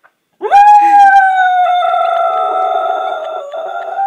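Dog howling: one long held note that starts about half a second in, swoops up quickly, then holds steady and steps slightly lower near the end. The howl is set off by a voice talking to the dog over a phone.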